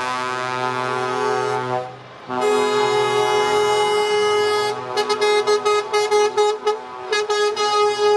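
Truck air horns sounding a multi-tone chord: a long blast, a brief break, a second long blast, then a rapid series of short toots in the second half.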